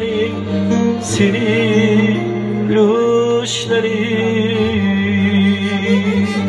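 A man sings an Uzbek pop song live, with vibrato, over a synthesizer keyboard playing sustained chords.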